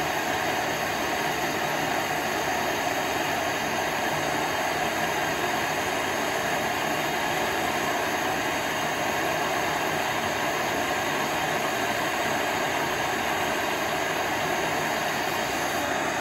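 Handheld gas torch burning with a steady, unchanging hiss.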